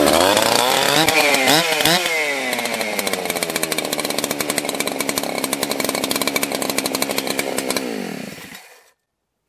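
Two-stroke chainsaw engine just started, revving up and down a few times, then running steadily. Near the end the engine winds down and stops suddenly, shut off by its start-stop switch, now working after the repair.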